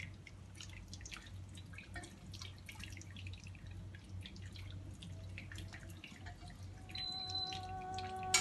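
Fish-and-tamarind soup broth dripping and trickling from a ladle through a strainer into a steel pot, in many small irregular splashes and ticks over a low steady hum.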